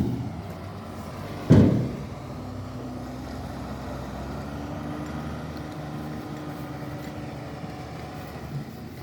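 Heavy diesel engine of a truck or construction machine running steadily, with one loud metallic bang about a second and a half in.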